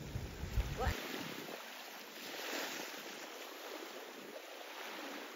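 Small waves washing onto a sandy beach, a steady hiss of surf that swells a little midway. A low rumble of wind on the microphone fills the first second.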